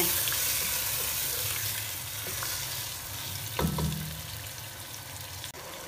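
Yogurt-marinated chicken sizzling in hot oil with sautéed onions over a high flame while being stirred with a wooden spatula; the sizzle slowly dies down.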